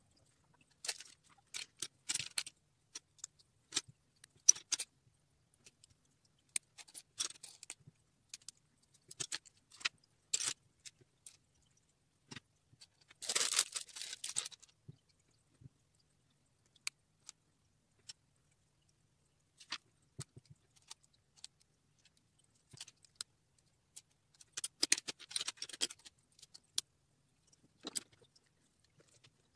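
Small plastic Lego bricks clicking and rattling as they are handled and fitted together, in scattered short clicks with two longer bouts of clattering, one about halfway through and one near the end.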